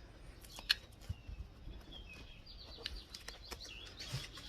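Faint, scattered clicks and light scraping of a razor knife trimming the leftover ends of a rubber tire plug flush with the tread, with faint bird chirps behind.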